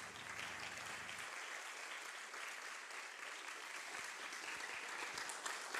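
Audience applauding, swelling in over the first second, then steady.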